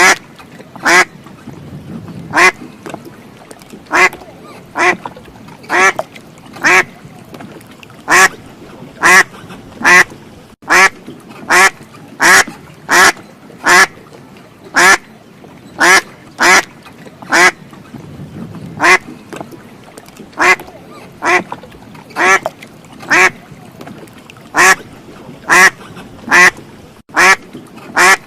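A duck quacking over and over, short sharp quacks about once a second in a steady, even rhythm.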